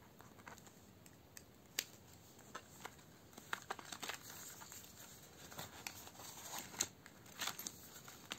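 Plastic binder pockets and pages rustling and crinkling as they are flipped, with scattered light clicks, busier in the second half; coins being handled near the end.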